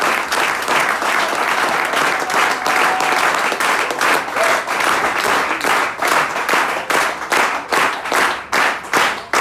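Audience applauding. About six seconds in, the applause turns into rhythmic clapping in unison, about three claps a second.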